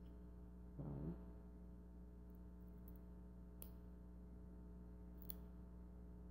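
Near silence over a steady low hum, with a short hummed vocal sound about a second in and two faint clicks later on.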